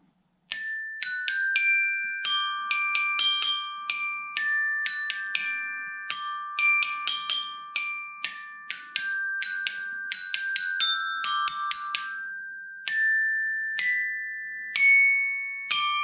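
Glockenspiel (Vic Firth Educational Series) played with two mallets: a quick ringtone melody of bright struck metal-bar notes that ring on, starting about half a second in and slowing to a few long-ringing notes near the end.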